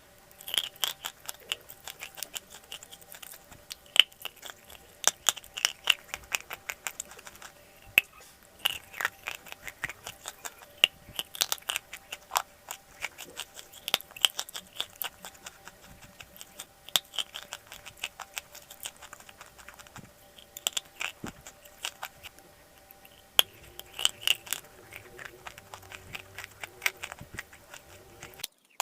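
Dry chalk clay crunching as it is bitten and chewed, in clusters of sharp crackling clicks every second or two.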